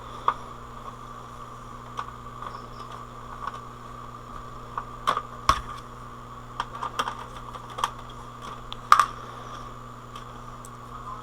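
Irregular small clicks and taps of a screwdriver and screws against a DVD player's casing as the bottom screws are put back in, the loudest tap about nine seconds in. A steady electrical hum runs underneath.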